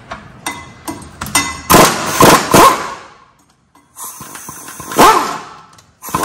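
Pneumatic impact wrench running in short bursts as it breaks loose and spins out the front brake caliper bracket bolts, the pitch bending as the tool spins up and winds down. A few light clicks come before the first burst.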